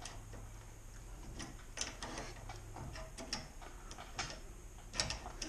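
Wrench tightening the rear adjustment nut on a garage door opener's chain, giving scattered light metallic clicks.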